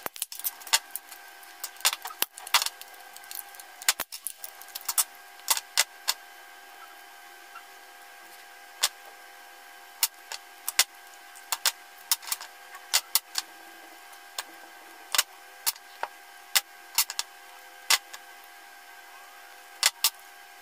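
Irregular sharp clicks, snaps and clinks as a laptop battery pack's plastic case is pried apart with a screwdriver and its 18650 lithium-ion cells are pulled out, their metal tabs worked free and the cells set down. A faint steady hum runs underneath.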